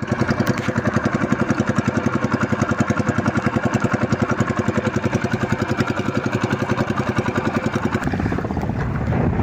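Small boat engine running with a fast, steady beat; about eight seconds in it gives way to rougher wind and water noise.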